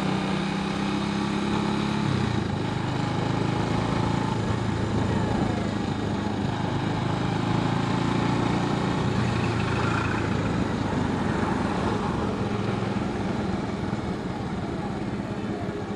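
Motorcycle engine running steadily at road speed, with road noise. The engine note changes about two seconds in and eases a little near the end as the bike slows.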